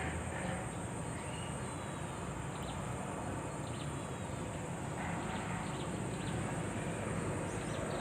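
Outdoor ambience of a steady, high-pitched insect chorus such as crickets, with a few faint short bird chirps.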